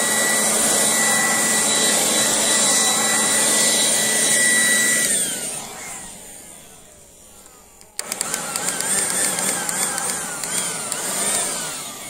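Cordless battery leaf blower running with a steady high whine. About five seconds in it is let off and spins down with a falling whine. About three seconds later it starts again, its pitch rising and falling as the trigger is worked.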